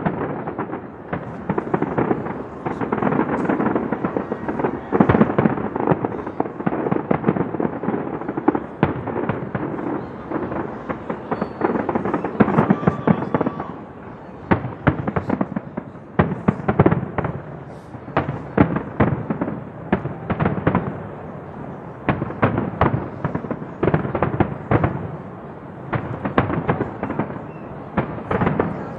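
Aerial fireworks display going off without a break: deep booms overlaid with rapid sharp cracks and crackle, the crackling densest in the second half.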